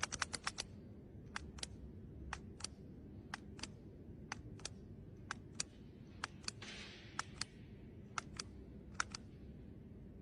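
Faint, scattered clicks like keys being typed. A quick run comes first, then single and paired clicks every half second or so over a low, steady background noise, with a brief soft hiss a little past the middle.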